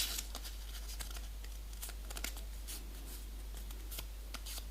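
A square of paper being folded and creased by hand: soft rustles and short, irregular crinkling ticks.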